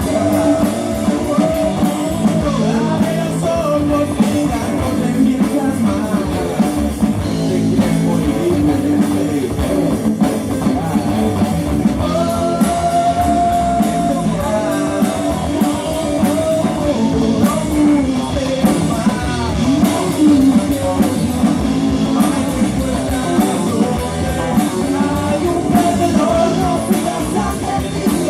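Rock music, punk-leaning, with a singing voice, electric guitar and drum kit playing continuously.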